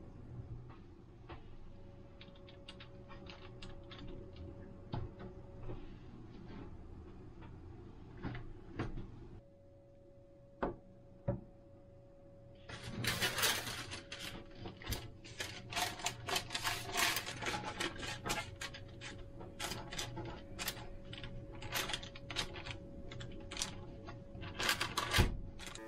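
Bamboo skewers and food being handled on a metal baking tray: irregular light clicks and taps, sparse at first and much busier from about halfway, with a heavier thump near the end and a faint steady hum underneath.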